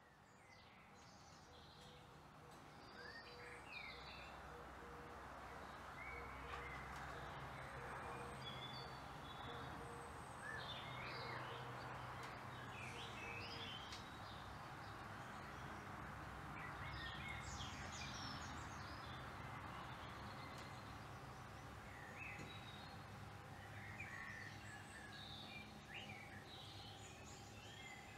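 Small birds chirping in short, scattered calls over a faint, steady background hum, fading in over the first few seconds.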